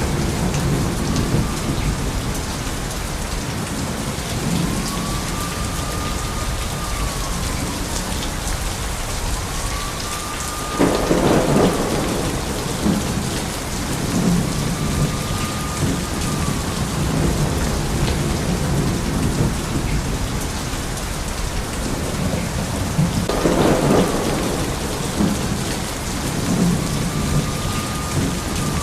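Heavy rain falling steadily under a continuous low rumble of thunder. Two sharp thunderclaps break through, about a third of the way in and again near the end. A faint whistling tone rises, holds and falls about every five seconds.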